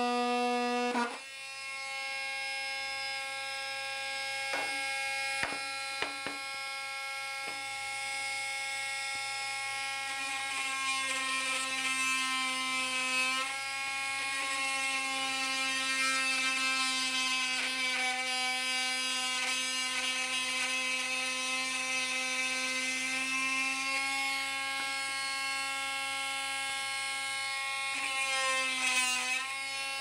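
Parkside 20V cordless oscillating multitool running with a steady buzz as its blade plunge-cuts into a wooden board. Near the end it is switched off and winds down with a falling pitch.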